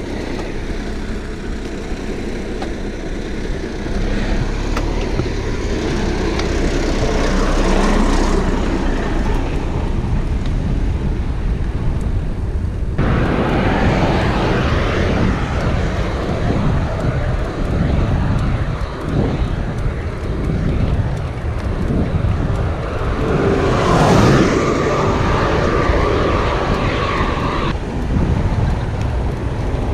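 Wind rushing over the microphone of a bike-mounted camera while riding, mixed with passing road traffic. The noise changes abruptly twice where clips are joined, and a vehicle swells up and passes about four-fifths of the way through.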